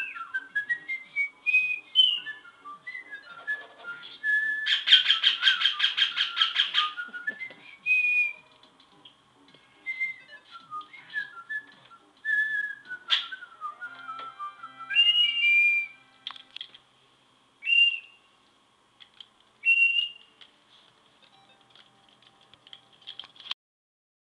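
Pet parakeet whistling a learned tune: runs of clear notes stepping up and down, broken by a loud, rapid buzzy chatter a few seconds in, then shorter, sparser whistles.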